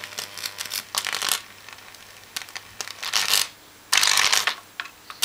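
High-voltage arc from a microwave-oven transformer burning into a computer motherboard, crackling and sizzling in irregular bursts over a steady low transformer hum.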